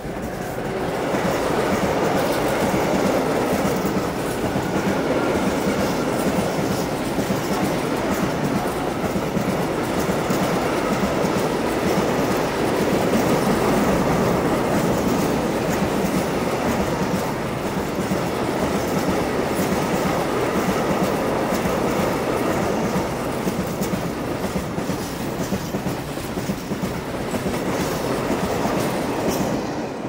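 Freight train of rail tank wagons rolling past close by, a steady loud rumble with wheels clattering over the rails, building up in the first second and dropping away at the very end as the last wagon clears.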